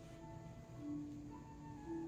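Faint, soft background music with a few slow held melody notes.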